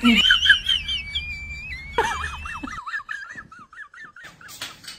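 A dog whining: high, wavering whimpers, one long drawn-out whine first, then a run of quick warbling ones from about two seconds in.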